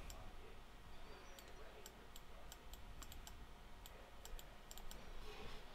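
Faint, irregular clicks from a computer mouse, a few a second, over a low steady hum.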